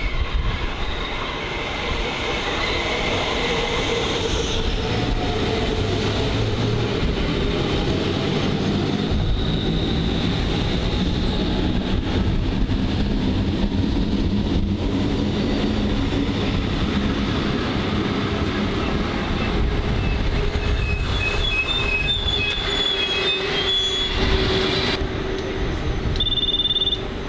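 Hamburg S-Bahn class 472/473 electric multiple unit running into a station: steady wheel-on-rail rumble, with a wheel squeal a few seconds in and short high brake squeals as it slows to a stop. Near the end come two short high beeps.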